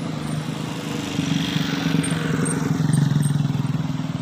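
A coach bus's diesel engine idling steadily, with passing road traffic on top: a motorcycle comes by close, loudest about three seconds in.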